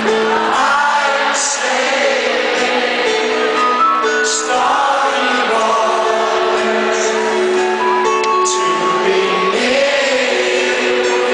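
Live band music with singing: held instrumental notes under a sung melody, with cymbal splashes now and then.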